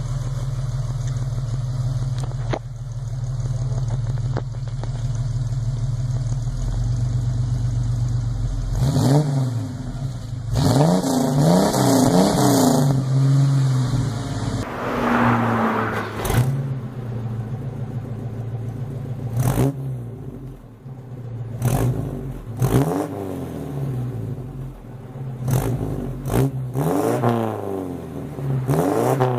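Chevrolet Opala engine idling steadily, then revved repeatedly from about nine seconds in: long rising and falling revs followed by a string of short throttle blips, its exhaust rumbling loud.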